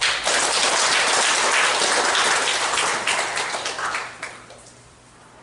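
Audience applauding: dense clapping that starts abruptly and dies away about four seconds in.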